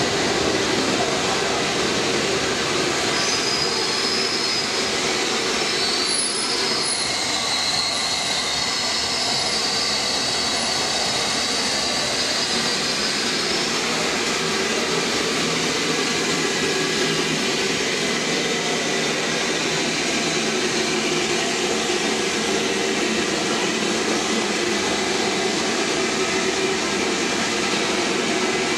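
Steady rumble of trains in an underground station: a London Underground electric train pulls out, then the steam locomotive Met 1 and its wooden carriages run in along the platform. High-pitched wheel squeal comes and goes over the first half.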